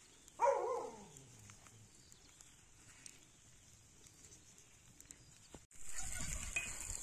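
A short animal cry falling in pitch about half a second in, then near quiet. About six seconds in, food in a kazan over a wood fire starts sizzling steadily as it is stirred with a metal skimmer.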